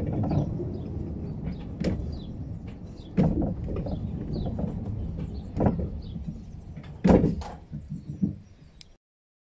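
Narrow-gauge train rolling slowly along the track: a low wheel rumble with four loud clanks and some smaller clicks as it creeps forward. It fades out just before the end.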